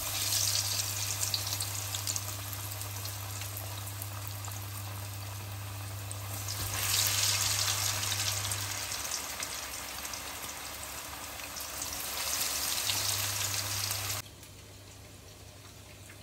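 Potato-coated chicken sticks deep-frying in hot oil in a pan: a dense, crackling sizzle that swells louder twice, then cuts off abruptly about two seconds before the end.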